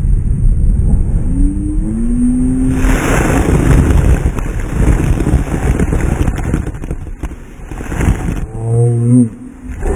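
Boston Whaler Outrage 240 powerboat running hard through a choppy sea. A steady low rumble of outboard engine and hull pounding runs throughout. The engine note rises about two seconds in. A long rush of breaking water and spray comes over the bow from about three seconds in until about eight seconds, and the engine note dips and climbs again near the end.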